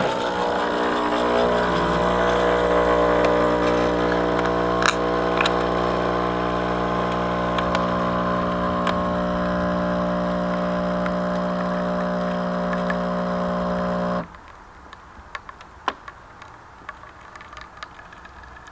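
Nescafé Dolce Gusto Genio S Plus capsule coffee machine's pump running steadily while it brews an espresso shot from the first water line. It makes a loud, even buzzing hum that cuts off abruptly about fourteen seconds in, at the end of the brew. Only a few faint ticks follow.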